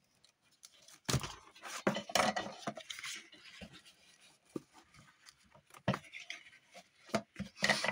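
A hand tool worked against cardboard packaging on a tabletop, standing in for a bone folder to crease it: scattered knocks and taps with a stretch of scraping.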